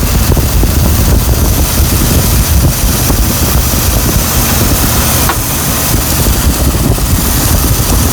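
Car engine idling with the hood open, a steady low running noise, with wind rushing across the microphone.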